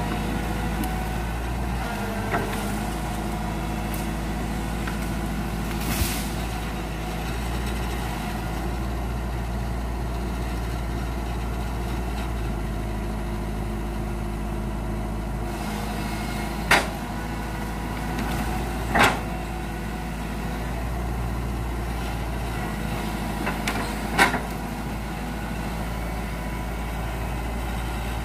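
Hitachi hydraulic excavator's diesel engine running steadily under work, with a few short, sharp knocks spread through, the two loudest in the second half.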